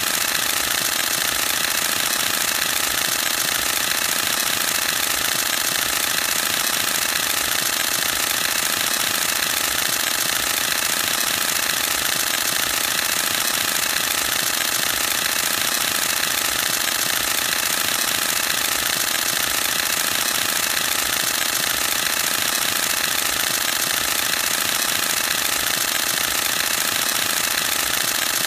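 Canon EOS-1D X Mark II firing a continuous burst: its mirror and shutter cycle in a rapid, even clatter of many clicks a second, without a break.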